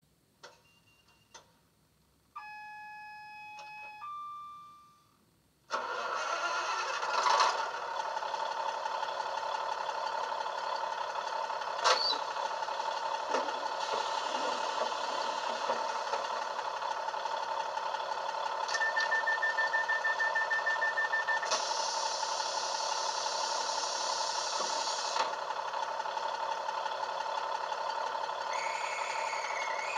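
DCC sound decoder in a model Class 150 diesel multiple unit, played through a 27mm bass-enhanced speaker: a couple of clicks and a few electronic tones, then the diesel engine starting about six seconds in and idling steadily. A short run of rapid beeps comes up partway through, followed by a few seconds of air hiss.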